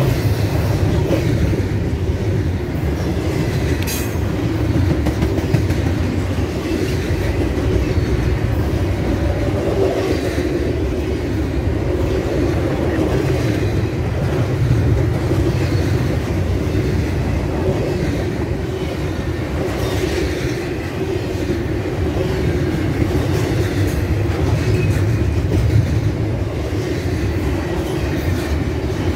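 Norfolk Southern intermodal train of double-stack container well cars rolling past at close range. A steady, loud rumble and clatter of steel wheels on rail runs unbroken throughout.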